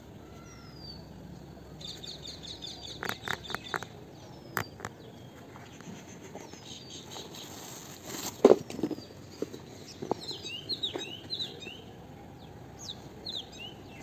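Small birds chirping outdoors in short downward-sweeping calls, with a quick run of calls about two to four seconds in and a flurry of calls near the end. Scattered clicks and knocks of hands handling a sneaker up close to the microphone, the loudest a thump just past halfway.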